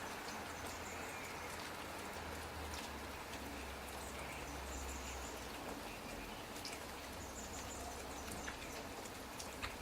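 Steady rain falling, with scattered faint drip ticks.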